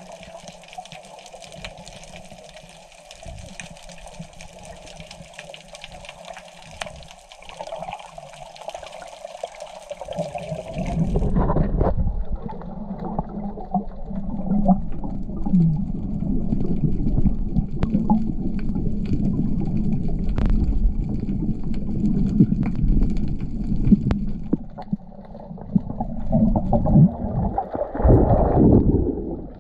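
Underwater ambience picked up by an action camera below the surface: muffled water movement and a low rumble, with scattered clicks and bubble noise. It gets suddenly much louder about eleven seconds in.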